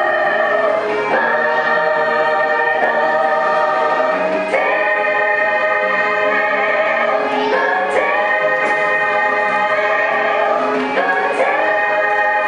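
Show music with a choir singing long held chords that change every second or two.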